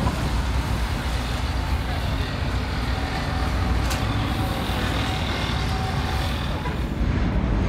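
City bus engine running as the bus moves slowly along the street, a steady low drone over street traffic noise.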